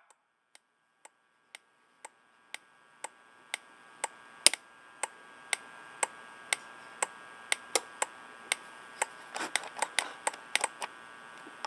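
A turn-signal flasher ticking evenly, about two ticks a second, starting faint and growing louder. A faint steady hum comes in about four seconds in, and a few extra clicks fall between the ticks near the end.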